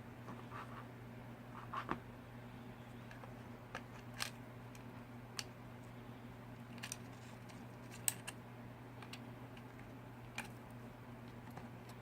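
Small plastic parts and wire connectors being handled inside an opened FrSky Taranis X9D radio transmitter during a gimbal swap: scattered light clicks and taps, the sharpest about eight seconds in, over a steady low hum.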